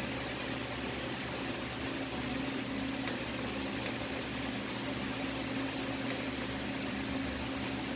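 Steady low electrical hum with a faint hiss from a CRT television while it searches for channels.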